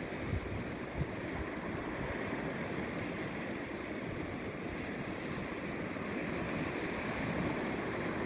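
Sea surf washing steadily, with wind rumbling on the microphone and a couple of short low bumps about a second in.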